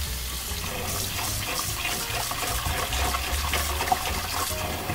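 Cold tap water running steadily into a stainless steel bowl of shucked oysters, rinsing off the salt scrub.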